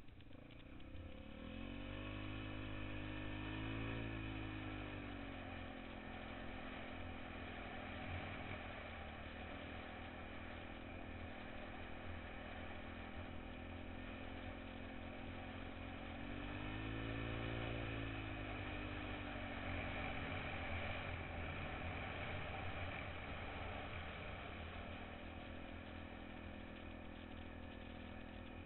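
Small off-road vehicle's engine running while it drives through snow, revving up and back down twice, a few seconds in and again about halfway, between steadier stretches of cruising.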